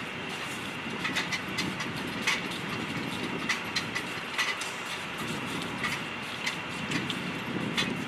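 Steady machinery noise with a faint constant high whine, broken by irregular sharp metallic clicks and clinks of hand tools at an aircraft nose wheel.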